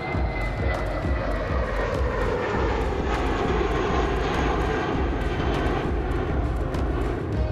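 Jet engines of a jetBlue Airbus airliner at takeoff power as it climbs out close overhead: a dense roar that swells through the middle, with a thin high whine falling in pitch over the first couple of seconds.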